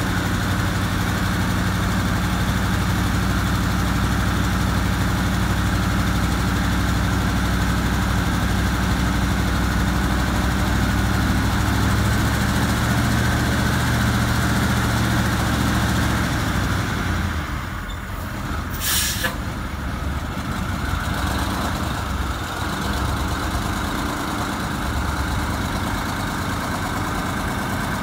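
Ford C-series fire truck's diesel engine idling steadily. A little after halfway its even hum loosens, and a short hiss of air from the air brakes follows about two-thirds of the way through.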